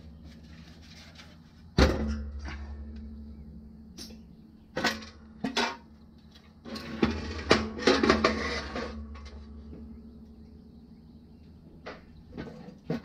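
Sheet-steel headlight bucket handled and set down on a metal workbench. A loud clang about two seconds in rings on and fades, followed by single knocks near five seconds and a cluster of clunks and rattles from about seven to nine seconds.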